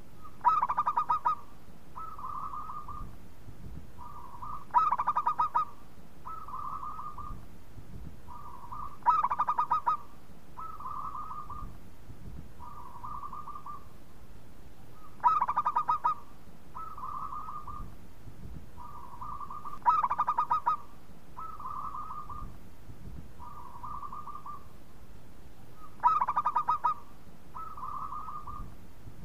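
Zebra dove singing its cooing song: six loud phrases, each opening with a fast rolling coo and followed by two or three softer separate coos, repeated every five seconds or so.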